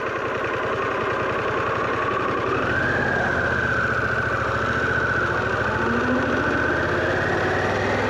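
Harley-Davidson Pan America's V-twin engine running at low speed, getting louder from about three seconds in.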